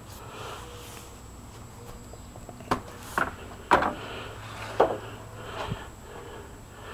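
Sharp wooden knocks and clatters, four of them within about two seconds in the middle, then a fainter one, over a low steady background hum.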